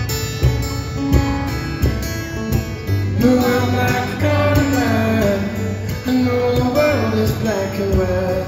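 Solo acoustic guitar played fingerstyle, a steady picked bass line under melody notes. About three seconds in, a man's voice starts singing over the guitar.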